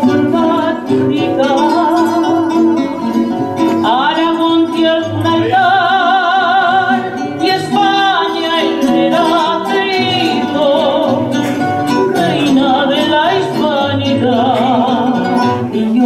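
Woman singing an Aragonese jota over guitar accompaniment, holding long notes with a strong vibrato.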